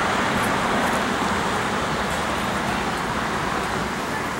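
Steady motor-vehicle noise: an even rumble and hiss with no breaks.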